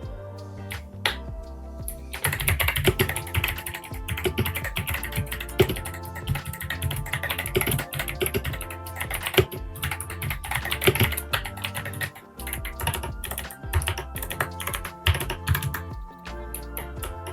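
Fast typing on Kailh Box White V2 clicky switches, with thick PBT keycaps on a gasket-mounted Ajazz AK820 mechanical keyboard. Each key clicks both on the press and on the release. A few scattered presses build into a dense stream of sharp clicks about two seconds in, over background music.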